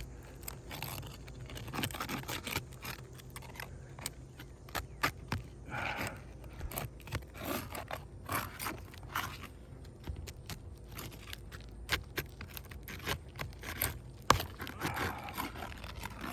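Scraping and many sharp clicks of a tool worked between asphalt shingles, cutting through the hardened seal strip to loosen a shingle.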